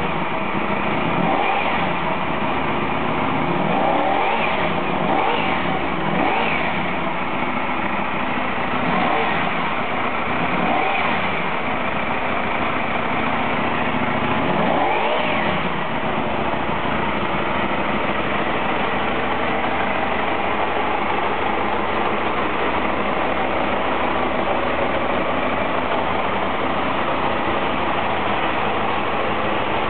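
Ducati Desmosedici RR's V4 engine running, revved in a series of short throttle blips over the first fifteen seconds or so, then settling to a steady idle.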